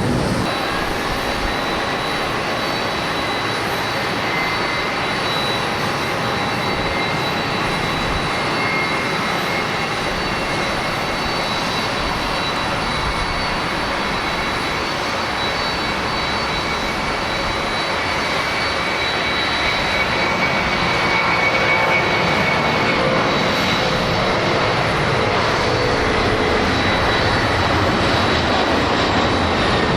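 Large jet airliner's engines at takeoff power: a steady, loud jet noise with high steady whine tones over it, growing slightly louder about two-thirds of the way through.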